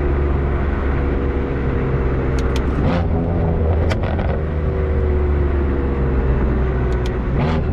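BMW F82 M4's twin-turbo S55 straight-six running through an EOS axle-back muffler, a steady deep drone with its pitch drifting slowly down, and a few sharp clicks mixed in.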